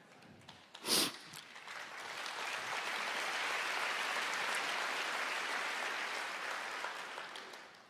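Congregation applauding in a large hall, the clapping swelling from about a second and a half in, holding, then fading away near the end. A short sharp noise comes just before, about a second in.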